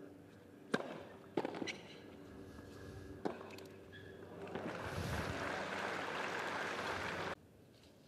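Tennis ball struck by racquets in a short rally, a few sharp pops a second or two apart, followed about halfway through by crowd applause that cuts off suddenly near the end.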